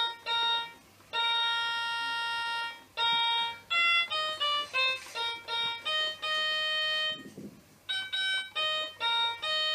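Electronic keyboard played one note at a time, a string of single steady tones in different pitches, mostly short, with one note held for nearly two seconds.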